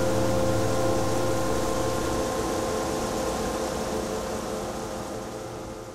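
Ambient drone: a steady hiss under a low held chord of unchanging tones, slowly fading out near the end.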